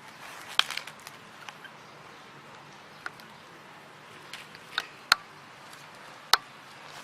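A handful of sharp, isolated clicks and taps, scattered irregularly, over a faint steady hiss.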